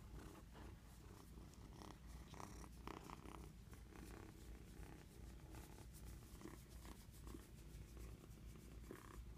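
A six-week-old orange tabby kitten purring steadily and quietly close to the microphone, with soft rustling as his fur brushes against it.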